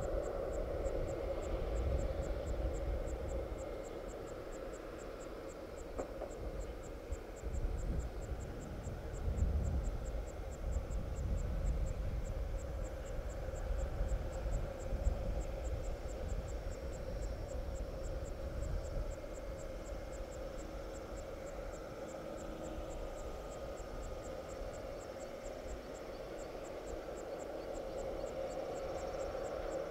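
Steady airport ramp hum from the parked Boeing 787 and its ground equipment, with low gusty rumbling that swells for a few seconds in the middle. Over it an insect chirps in a fast, even, high-pitched pulse.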